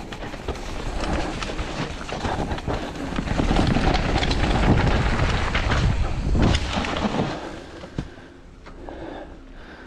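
Mountain bike running fast down a dirt woodland trail: tyres rumbling over dirt and roots, the bike rattling and knocking, and wind buffeting the microphone. The noise drops away about seven seconds in as the bike slows, with one sharp knock about a second later.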